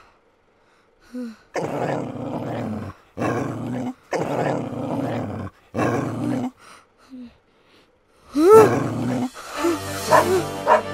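Dogs growling and barking in four long, harsh bursts, then a loud rising-and-falling cry near the end as dramatic music comes in.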